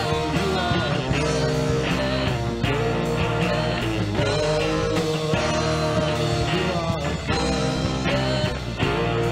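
Live worship band playing an instrumental passage between sung lines: held chords with gliding melody notes over a steady low end.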